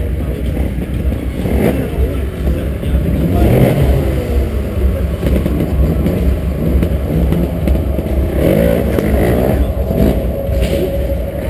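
Trials motorcycle engine running with a steady low rumble and blipped repeatedly, the revs rising and falling in short bursts as the bike climbs concrete obstacles.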